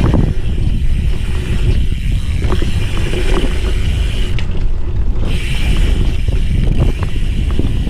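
Wind rumbling on the microphone while a dirt jumper bike rolls, with rattling and clicks from the bike. A higher hiss drops out for about a second midway.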